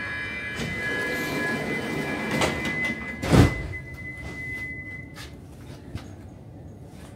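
Stockholm metro train's sliding doors closing: a steady high warning tone sounds while the doors run shut and meet with a heavy thud a little past three seconds in. The tone stops about two seconds later.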